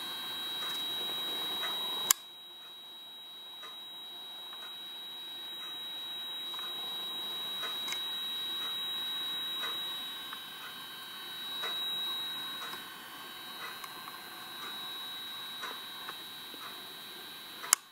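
A steady, high-pitched electronic whine from the ghost-hunting gadgets, with faint ticks about once a second. There is a sharp click about two seconds in and a louder sharp knock just before the end.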